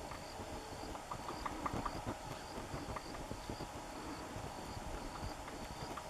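White-fronted woodpecker pecking, irregular taps with a quicker run of sharper knocks between one and two seconds in. A faint high ticking repeats about twice a second in the background.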